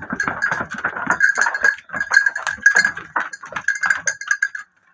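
A flock of black-headed sheep bleating, with irregular clinks and knocks among them.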